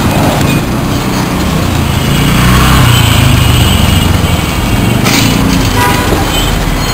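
Street traffic: a small-engined vehicle passes close, loudest about halfway through, over a steady low traffic rumble.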